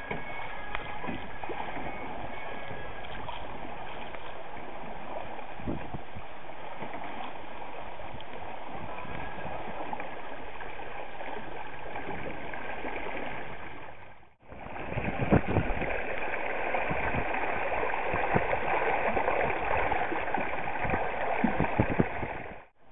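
Water rushing steadily along the hull of a small homebuilt Stevenson Weekender sailboat under sail. After a cut about 14 seconds in, louder gurgling and splashing of the disturbed water close beside the boat.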